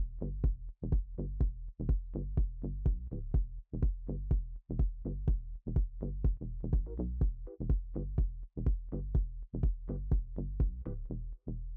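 Background electronic music with a steady drum-machine beat and heavy bass.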